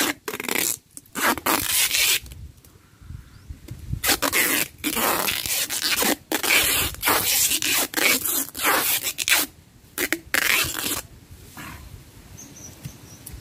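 Plastic sheeting rustling and scraping in a quick run of short bursts as it is wound tightly around a dug-up shrub's root ball. It dies down about eleven seconds in.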